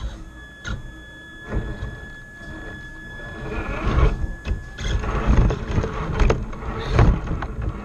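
Onboard sound of a scale RC rock crawler, picked up by the camera on its hood: a faint steady high whine for the first four or five seconds, then irregular knocks and rattles as the truck creeps forward.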